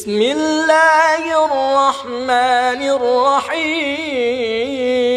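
A single voice reciting the Quran in melodic murattal style, drawing out long sung notes that step between pitches, with wavering ornamented turns in the middle and a held note near the end.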